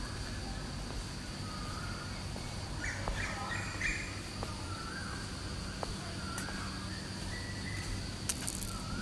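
Outdoor ambience of birds chirping, with short calls repeating every second or so over a steady high drone.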